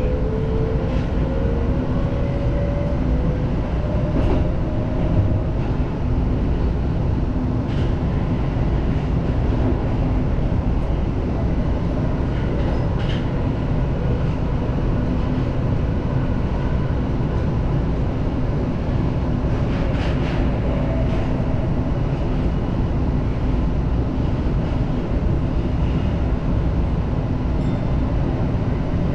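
Tokyo Metro Marunouchi Line subway train running through a tunnel, heard from inside the front car: a steady rumble of wheels and running gear. A motor whine rises in pitch over the first few seconds as the train picks up speed, and faint clicks from the rails come every few seconds.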